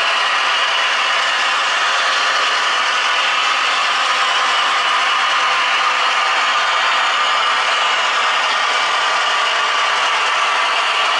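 Model train running on the layout: a steady mechanical rattle and whirr of motor, gears and wheels on the rails.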